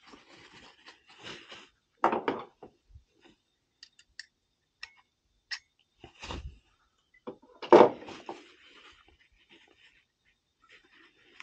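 Hand-cleaning of an oil burner's nozzle and electrode assembly: a rag rustling and wiping over the metal parts, with small clicks and scrapes as they are handled, and two louder scuffs about two and eight seconds in.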